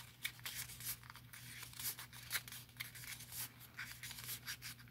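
Paper rustling and crinkling in short, irregular strokes as hands fold a scored strip of patterned paper into accordion pleats.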